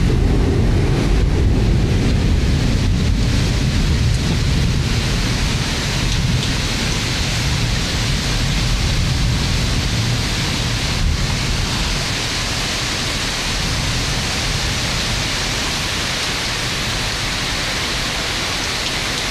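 Heavy thunderstorm rain pouring steadily. A low rumble underneath is strongest over the first several seconds, then fades.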